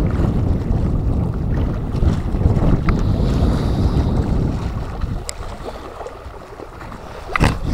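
Strong wind buffeting the microphone: a dense low rumble that eases about five seconds in. A few faint clicks are heard, then a sharper knock near the end.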